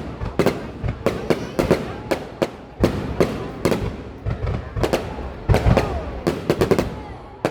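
Aerial fireworks bursting in a rapid, irregular string of sharp bangs, often several a second, with short echoing tails.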